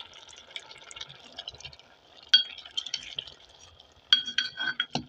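Long-handled steel ladle stirring boiling mustard greens in a metal pot, clinking and ringing against the pot a few times, once about two seconds in and in a quick cluster near the end. A faint crackling simmer lies under it.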